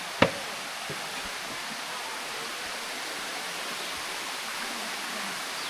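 Water cascading down a limestone waterfall: a steady rushing hiss, with one sharp knock about a quarter of a second in.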